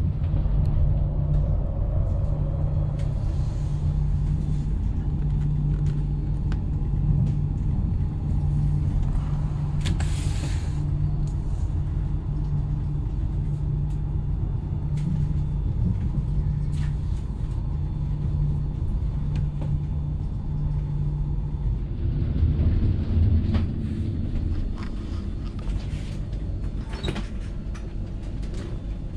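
Steady low rumble of an Italo AGV high-speed train, heard from inside the passenger cabin while it runs. A brief hiss sounds about ten seconds in, and a few light clicks come near the end.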